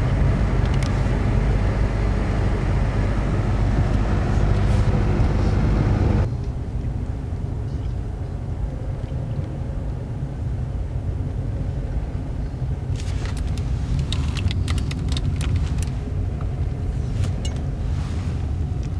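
Car driving on an icy road, heard from inside the cabin: a steady low rumble of engine and tyres that drops abruptly to a quieter rumble about six seconds in. A run of sharp clicks and ticks comes near the end.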